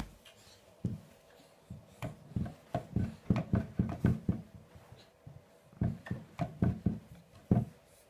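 A toddler's hand working a wall toggle light switch: a run of sharp clicks and taps as the switch is flipped and slapped. They come in quick bunches, the busiest a couple of seconds in and another near the end.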